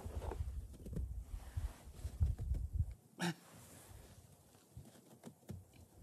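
Bare hands scooping and packing snow, with scattered soft crunches, over gusty wind rumble on the microphone that drops away for a couple of seconds. A short vocal sound from the man comes about three seconds in.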